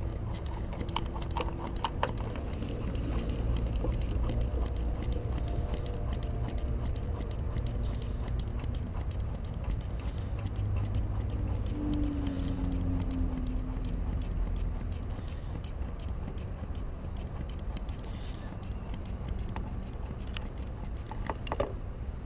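Hand-held Mityvac vacuum pump squeezed over and over, a run of small irregular clicks, drawing vacuum on a clutch master cylinder reservoir to pull air out of the hydraulic clutch line, over a steady low rumble.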